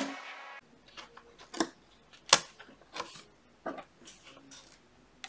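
Background music cuts off at the start, followed by scattered light clicks and taps of plastic felt-tip markers being picked up and gathered on a wooden desk. The loudest tap comes a little over two seconds in.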